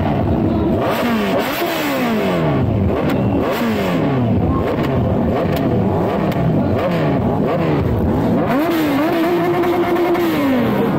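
Sportbike engine revved again and again, each rev rising sharply and falling back about once a second, then held at high revs for a couple of seconds near the end before dropping.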